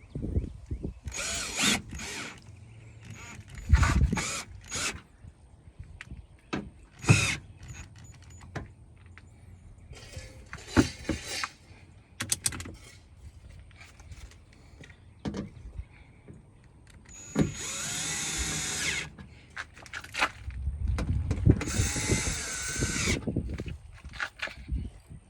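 Power drill driving screws tight, running twice for about two seconds each near the end, with its motor pitch dipping under load. Before that, scattered clicks and knocks from handling parts and tools.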